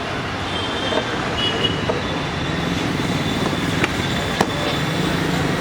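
Steady motor-vehicle engine and road noise, with two sharp clicks about four seconds in.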